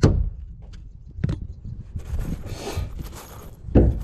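Sharp knocks from roofing work: one at the start, one about a second in and a louder one near the end, with a scraping rustle between them.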